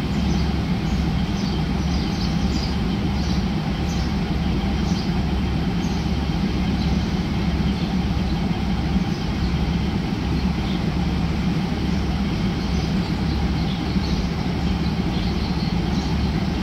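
Diesel railcar engines idling while the train stands at the platform: a steady low drone that does not change, with scattered short high chirps above it.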